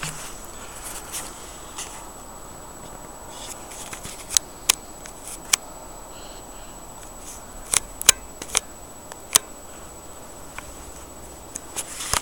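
Steady outdoor hiss with a scattered run of sharp, short clicks, about seven of them between four and ten seconds in.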